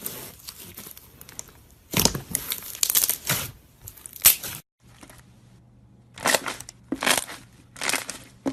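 Slime being squeezed and pressed by hand, giving irregular bursts of crackly, crunchy noise. The sound breaks off briefly just past the middle, then resumes over a faint low hum.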